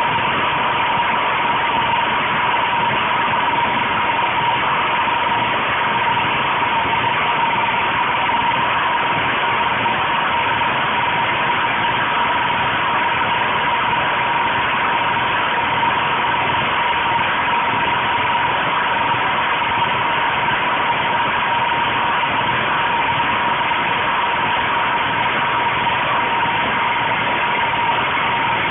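Portable petrol generator's engine running steadily, with a steady high whine over it; its air intake is fed hydrogen-oxygen gas from an HHO electrolyzer.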